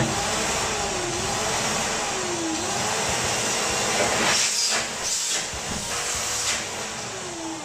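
Hitachi 945BR wet-and-dry drum vacuum cleaner switched on and running, its motor fitted with freshly replaced carbon brushes: a loud, steady rush of air starting suddenly, with a wavering whistle that dips and recovers a few times.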